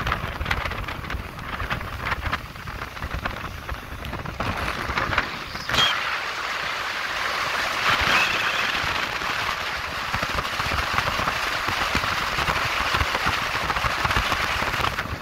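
Motorboat underway on a lake: wind on the microphone and rushing water hiss over the boat's rumble. A single knock comes about six seconds in, after which the low rumble drops away and the hiss grows stronger.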